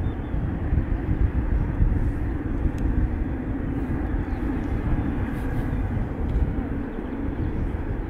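Jet airliner engines rumbling steadily, easing off slightly near the end.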